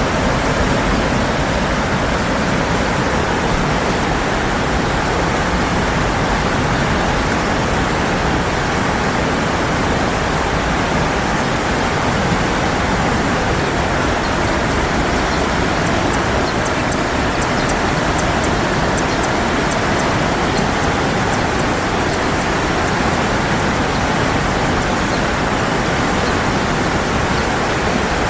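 Steady, unbroken rush of running water, loud and even throughout.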